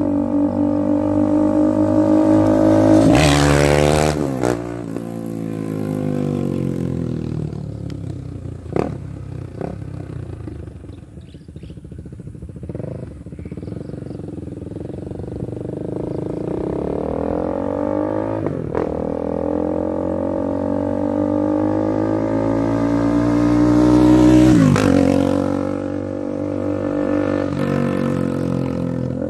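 KTM Duke 390 single-cylinder engine running through an exhaust with the catalytic converter and resonator removed and no dB killer in the stock end pipe. The engine note rises and falls, loudest about three seconds in and again near the end, and after each peak the pitch drops steeply.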